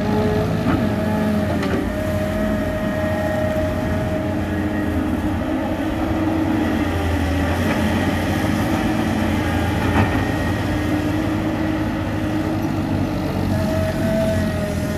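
Tracked hydraulic excavator's diesel engine running steadily as the machine digs, with a high tone that comes and goes and shifts in pitch, and a few sharp knocks, the loudest about ten seconds in.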